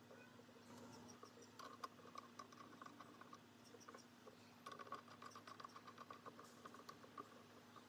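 Faint light clicks and taps of small metal parts of an antique bipolar dynamo being handled and fitted by hand. They come in two short clusters over a steady faint hum.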